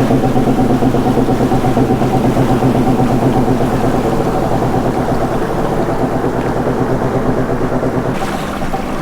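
Personal watercraft engine running steadily at low speed with an even, pulsing drone.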